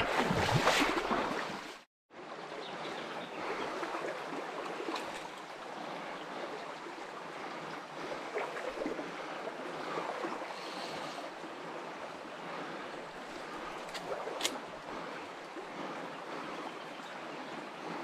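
Small trout creek running, a steady burble of flowing water. It is louder for the first two seconds, cuts off abruptly into a moment of silence, then resumes steadily with a few faint clicks and a sharp tick near the end.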